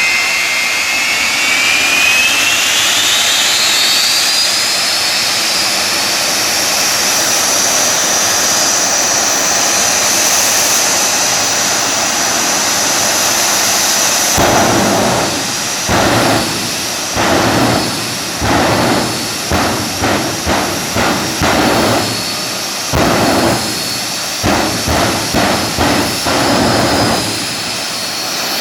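Jet car's turbine spooling up, its high whine climbing steadily in pitch for a few seconds and then holding. About halfway through, a long series of loud, abrupt blasts begins, around one a second at first and coming faster later.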